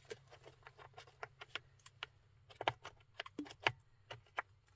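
Scattered light clicks and taps of a travel electric kettle being handled and its power cord plugged in, with a couple of sharper clicks a little past the middle.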